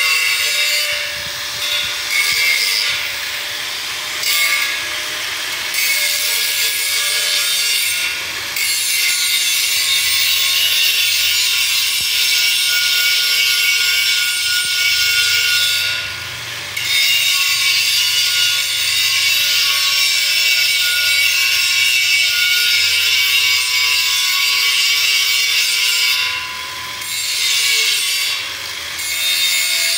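Handheld angle grinder grinding a steel frame, a steady high grinding noise that dips briefly several times as the disc eases off the metal.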